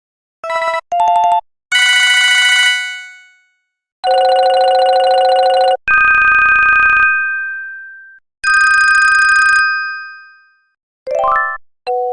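Panasonic KX-TG6611 cordless phone ringtones played back one after another on the Beatnik software synthesizer. First come two quick beep bursts, then several single electronic ring tones, each held for about a second and then dying away, with short gaps between them. Near the end there is a fast rising run of notes.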